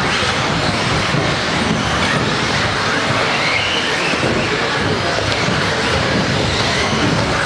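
A pack of 1/10-scale electric 2WD modified RC buggies racing, their brushless motors whining up and down in pitch over a steady hiss, echoing in a large hall.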